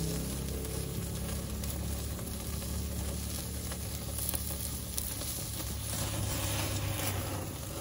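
Ribeye steaks searing on a very hot charcoal grill, sizzling and crackling as fat drips onto the coals and flares up, with a few sharp ticks along the way.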